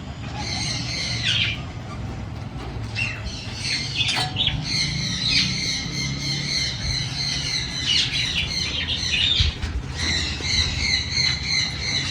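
A large flock of budgerigars chattering continuously, many short overlapping chirps and squawks, over a steady low rumble.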